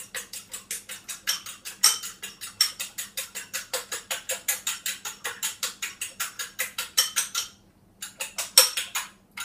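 A fork beating eggs in a small bowl, clicking against the bowl's side in a fast, even rhythm of about six strokes a second, stopping briefly twice near the end.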